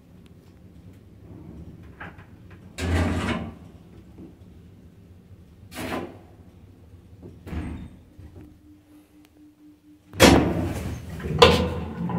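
Doors of a 1990 ZREMB passenger lift working: a string of separate mechanical clunks, a short steady hum about eight seconds in, then louder door knocks and rattling with a sharp bang near the end.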